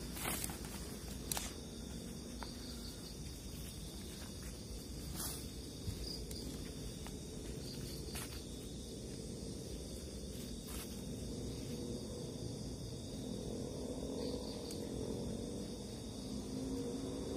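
Steady chirring of night insects in undergrowth, with a few scattered sharp clicks and rustles from someone walking through the vegetation.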